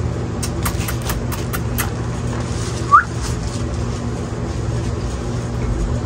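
Syringe-feeding of an Indian ringneck parrot chick: a quick run of about seven small sharp clicks in the first two seconds, then one short rising squeak about three seconds in, the loudest sound, all over a steady low hum.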